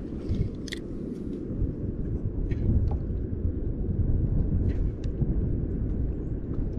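Wind buffeting the microphone as a steady low rumble, with a few faint short ticks over it.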